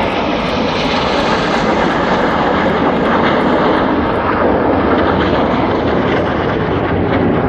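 Red Arrows BAE Hawk T1 jets passing, a loud steady jet-engine rush that slowly grows louder.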